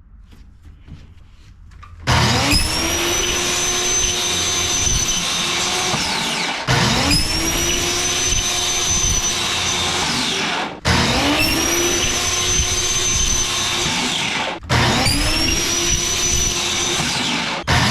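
A handheld electric power tool motor spinning up and running steadily, in four back-to-back takes, each starting with a rising whine that levels off. Faint knocks come before it.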